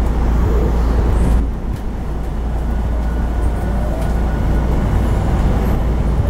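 Tokyo Metro 02 series subway train (Toshiba IGBT-VVVF unrenewed car) running, heard from inside the car: a steady loud rumble of wheels and running gear on the track, easing slightly after about a second and a half. From about halfway, a faint thin whine of the inverter and motors comes in and slowly rises in pitch.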